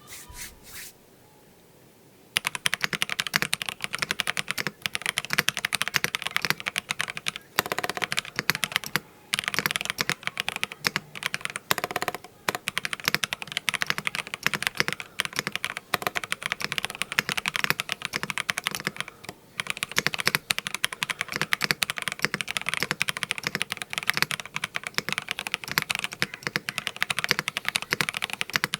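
ZZANEST Elements 75XT mechanical keyboard, built on an aluminium plate with Akko CS Crystal linear switches and GMK PBT keycaps, being typed on fast and continuously. The keystrokes start about two seconds in, with a few brief pauses along the way.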